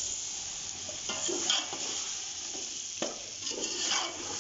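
Diced potatoes and tomatoes sizzling in hot oil in an aluminium pot, with a metal slotted spoon stirring and scraping against the pot a few times.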